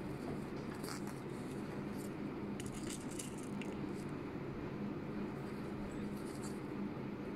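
Steady low background hum with a few faint rustles and light ticks from hand-sewing: a needle and thread drawn through fabric while small beads are handled.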